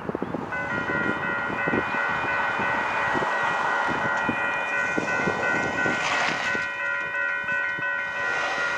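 An approaching train's locomotive air horn sounding a long, steady chord that starts about half a second in, over the rumble and clatter of the train on the rails.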